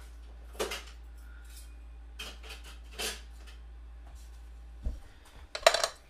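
Kitchen utensils and dishes being handled: several short clinks and knocks, with a quick cluster of sharper knocks near the end.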